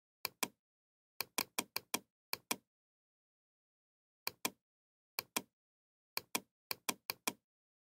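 Computer mouse button clicking about nineteen times, mostly in quick press-and-release pairs, in short bursts with silence between, as the scroll bar's down arrow is clicked to step a page down.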